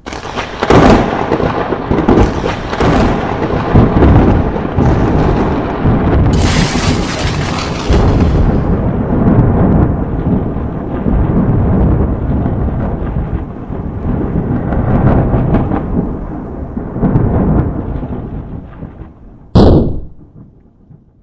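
Thunder rumbling and rolling in repeated surges, with a sharp crack about six seconds in, the rumble dying away toward the end. Near the end comes one short, sudden loud burst with a high ringing edge.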